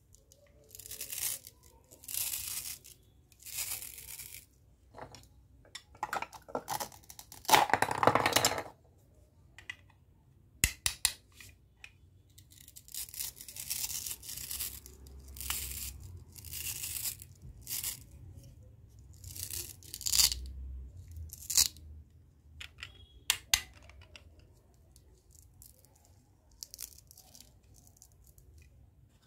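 Hook-and-loop (Velcro) strips on the halves of a plastic toy corn cob being pulled apart and pressed back together: a series of short ripping sounds, the loudest about eight seconds in, with a few sharp plastic clicks.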